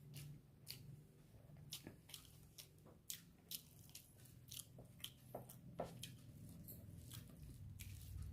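Close-miked mouth sounds of a person chewing rice and sidal chutney: soft, irregular wet clicks and smacks, one or two a second, faint over a low steady hum.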